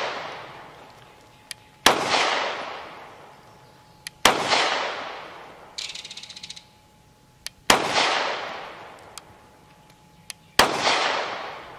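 Four single shots from a Bul Armory AXE C Hatchet 9 mm pistol, a few seconds apart. Each sharp bang is followed by a long echo that fades over about two seconds.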